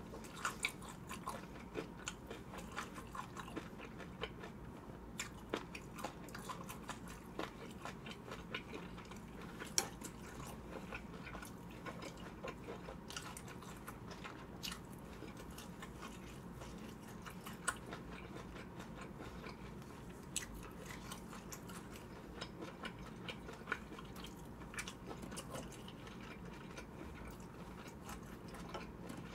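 A person chewing and biting food close to the microphone, with wet mouth sounds and many small sharp clicks scattered throughout, over a faint steady room hum.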